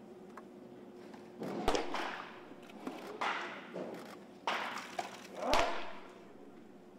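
Pitched baseballs popping into a catcher's mitt: two sharp pops about four seconds apart, among other short noisy sounds.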